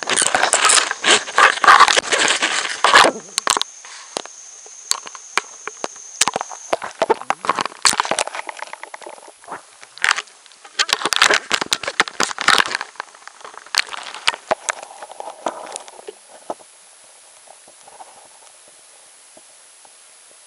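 Rough handling noise from a camera being moved around at the water's surface, with crackles, knocks and splashing in several loud spells, the loudest in the first three seconds. Near the end it settles into a quiet, steady muffled hush as the camera sits underwater.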